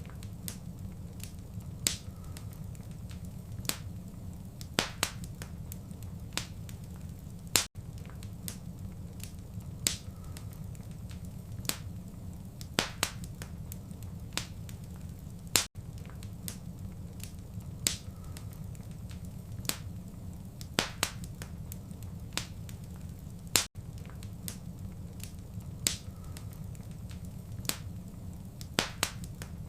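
Wood fire crackling in a fireplace: sharp pops and snaps scattered over a low, steady rumble of flame. The sound repeats in a short loop, with a brief dropout about every eight seconds.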